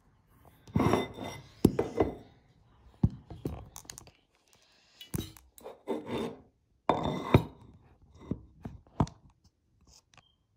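Handling noise of a phone being set down and shifted about on a bathroom sink counter: irregular scraping and rubbing with several sharp knocks and clicks.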